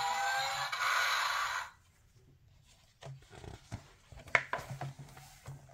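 A sound effect from a children's play-a-sound book's small electronic speaker, lasting about a second and a half. A little later comes the rustle and flap of a paper page being turned.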